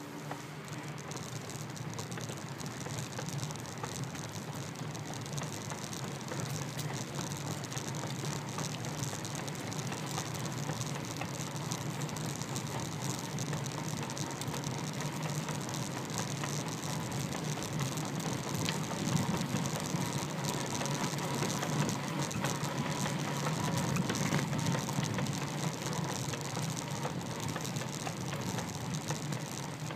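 Steady rolling noise of a bicycle ride picked up by a phone mounted on the bike: road and wind noise with light rattling and ticking from the bike.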